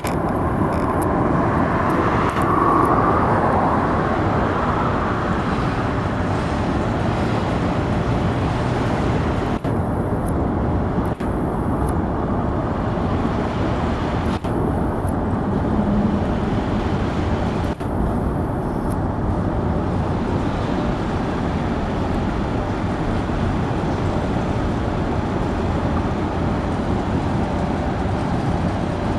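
Union Pacific freight train rolling past, a steady running noise of its cars on the rails.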